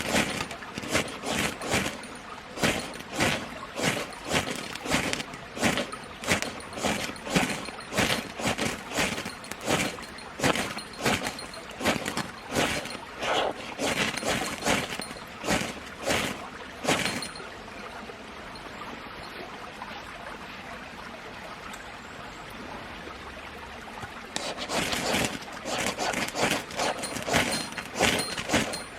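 A steady run of crunching, rustling strokes, about two a second, that stops for several seconds past the middle, leaving a faint steady hiss, then starts again.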